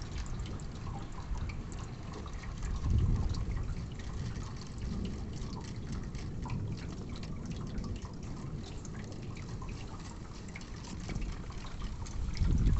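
Steady rain, with many drops pattering and water dripping and trickling as runoff. Low swells of noise rise about three seconds in and again near the end.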